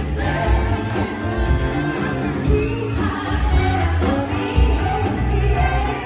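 Pop music with a singer over a steady beat and heavy bass.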